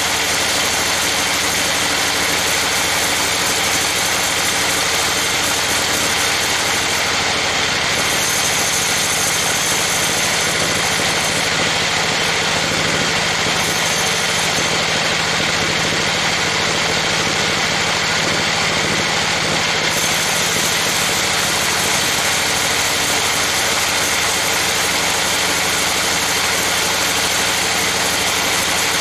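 Sawmill band saw running and ripping lengthwise through a trembesi (rain tree) log: a loud, steady mix of machine drone and blade-cutting noise.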